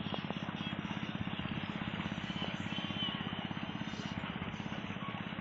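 Small engine running steadily with a rapid, even beat.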